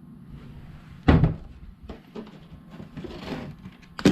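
Two heavy knocks about three seconds apart, with scraping and handling noise between them, as the removed cast-iron cylinder head of a Ford 4.9 straight six is turned over on a work table.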